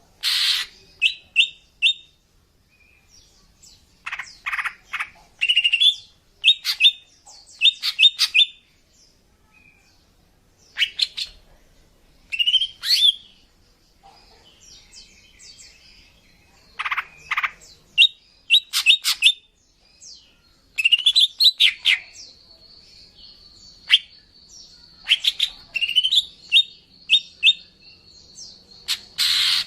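Female cucak ijo (green leafbird) calling: bursts of rapid, sharp chirps and short rising slurred notes repeated every second or two, with pauses between groups. This is the lure call used to attract a male. A steady high thin tone sounds alongside the chirps through the last third.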